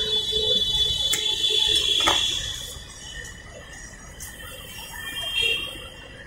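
Pressurised glass soda bottle hissing as it is opened: a high, steady hiss for about two and a half seconds, with a couple of sharp glass clicks. Near the end comes a shorter fizz as the soda is poured into a glass.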